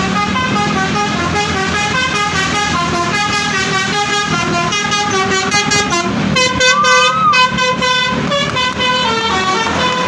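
Bus's multi-tone 'telolet' (basuri) musical horn playing a quick melody, its notes changing several times a second, with longer held notes between about six and eight seconds in.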